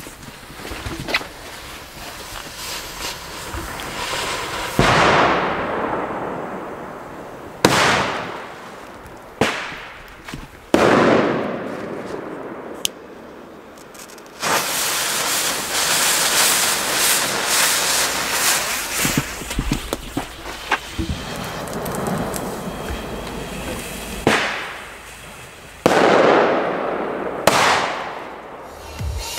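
Cobra 3 BP 4 black-powder firecrackers going off: a series of sharp bangs, each ringing on in a decaying echo among the trees. In the middle comes a long hissing spell as a fuse and its sparking pre-burner burn down, followed by more bangs near the end.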